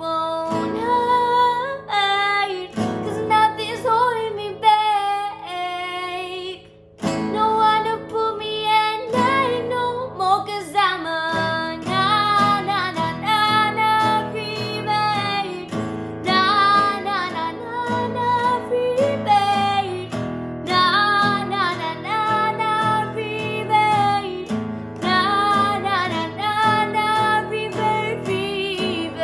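Music: a woman singing a melody over a strummed acoustic string instrument, with a brief pause about seven seconds in.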